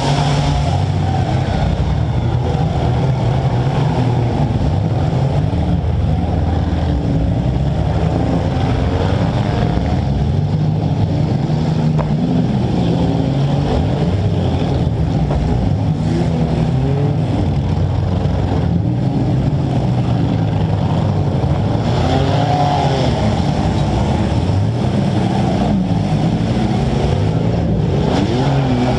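Compact demolition derby car's engine running loud and revving up and down repeatedly, heard close up from on top of the hood.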